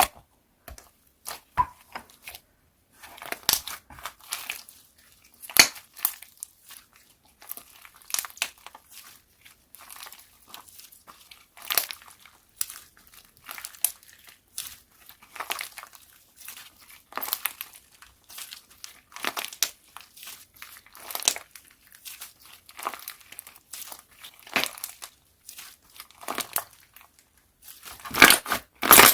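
Slime being squeezed and pressed by hand, giving irregular crackling, crunching pops, louder and denser near the end.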